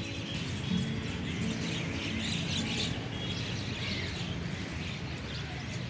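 A large flock of birds chirping and chattering from the trees, a dense continuous twittering.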